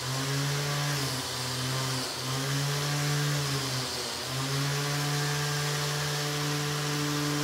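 Bench-mounted angle grinder running a wire wheel brush while a rusty steel angle is held against it to strip the rust: a steady motor hum over a scratchy hiss of wire on metal. The hum sags briefly about three times as the steel is pressed into the wheel.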